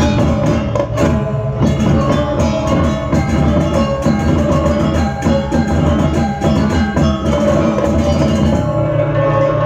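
Balinese gamelan playing a bebonangan-style piece: fast, dense strokes on bronze gong-chimes and drums over ringing metallic tones. About nine seconds in the low drumming drops away and the ringing tones carry on.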